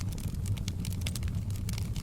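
Fireplace fire burning: a steady low rumble with frequent, irregular sharp crackles and pops.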